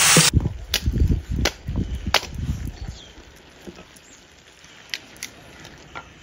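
Scattered sharp knocks and taps, irregularly spaced, over a low rumble that fades out about three seconds in.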